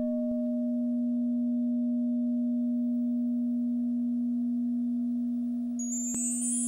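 Opening music: one low, steady, almost pure tone held throughout. Near the end, high bell-like tones ring in over it.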